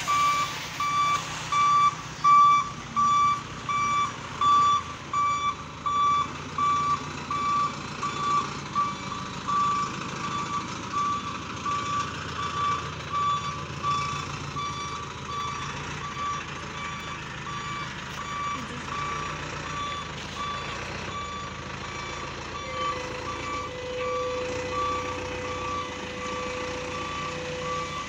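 Fire engine's reversing alarm beeping about once a second over its running engine, loud at first and fainter later. A steady lower tone joins near the end.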